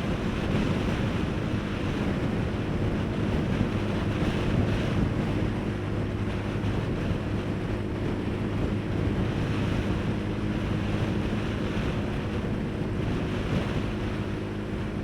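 Motorcycle engine running at a steady speed while riding, under heavy wind rushing over the microphone.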